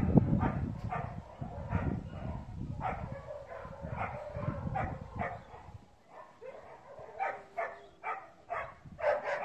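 A dog whining in short, repeated bursts.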